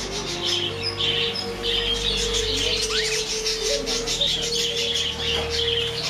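Budgerigars chirping and chattering: many short, high chirps in quick succession, over a steady low held tone.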